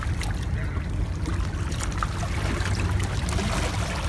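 Seashore ambience: steady low wind rumble on the microphone with water lapping and splashing, and scattered small clicks.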